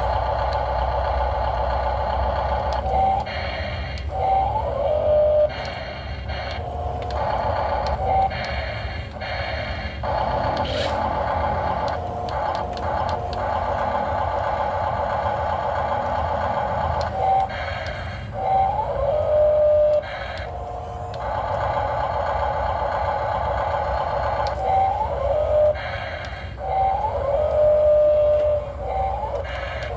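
Radio-controlled model excavator's hydraulic pump whining steadily, its pitch dipping and briefly gliding every few seconds as the arm and bucket work.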